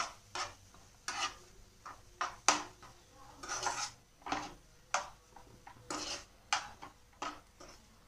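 Stainless-steel slotted spatula scraping and tapping against a non-stick frying pan while stirring dry, crumbly roasted semolina, in irregular strokes about two a second.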